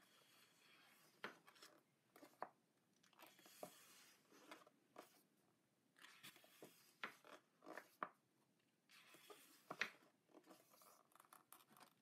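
Faint rustling and sliding of glossy art-book pages being turned and smoothed by hand, with a scatter of soft ticks and brushes.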